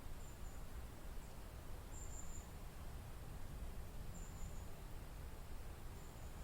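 Wind in a forest, a steady low rush. Short, faint high chirps from an insect or bird come through about every two seconds.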